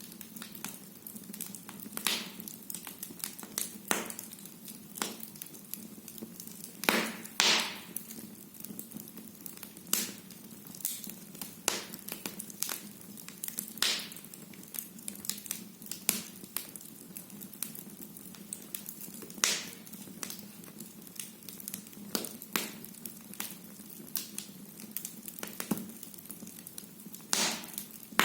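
Firewood burning in a fireplace: irregular sharp crackles and pops, a few louder snaps among them, over a low steady hiss of the fire.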